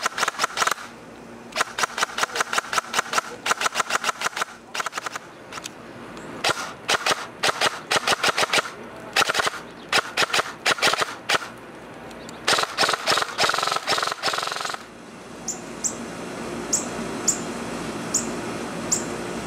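G&G TR16 MBR 308WH airsoft electric rifle firing on full auto, in several bursts of rapid shots one to three seconds long with short pauses between them. Near the end the shooting stops and a hummingbird gives short, high chirps about twice a second.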